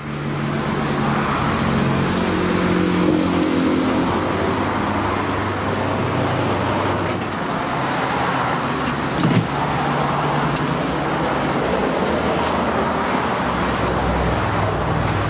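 Steady road-traffic and car-engine noise, with a brief louder bump about nine seconds in and a few light clicks later on.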